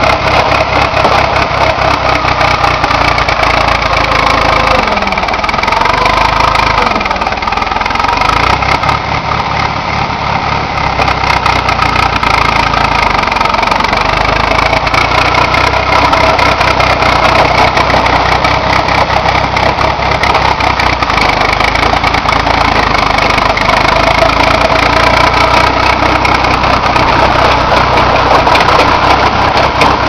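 John Deere 350B crawler dozer/backhoe engine running steadily while the machine is operated, its note dipping briefly about five to eight seconds in.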